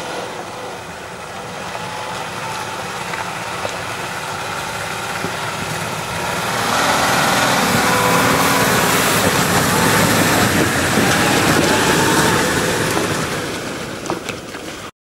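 Nissan Patrol off-roader's engine running as it drives along a gravel track, growing louder about halfway through as it draws near, with tyre noise over gravel and snow.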